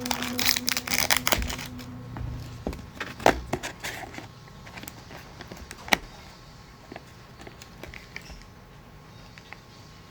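Scattered sharp clicks and knocks with some crinkling, the loudest about three and six seconds in; a held tone fades out over the first two seconds.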